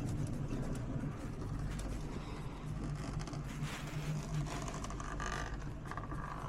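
Steady low mechanical hum and rumble of a ski lift running as it carries riders downhill. A faint higher tone comes in near the end.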